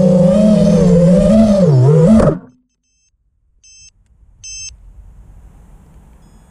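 FPV racing quadcopter's motors and propellers, a loud buzzing hum whose pitch wavers and dips, cutting off suddenly about two seconds in. Then two short high electronic beeps about a second apart.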